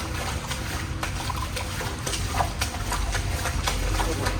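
Footsteps splashing and sloshing through shallow water in a tunnel, irregular splashes over running water. A low rumble builds from about three seconds in, which one of them takes for a car passing.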